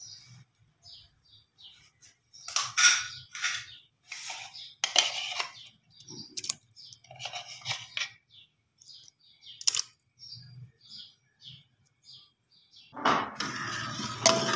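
Intermittent light clattering with small high chirps, then, near the end, a metal ladle stirring and scraping around a steel pot of milk and ground rice for kheer.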